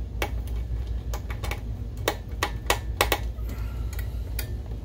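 Irregular sharp clicks and taps of a small screwdriver and plastic parts as the lamp module is seated and screwed down in a DLP projector's lamp bay, over a steady low hum.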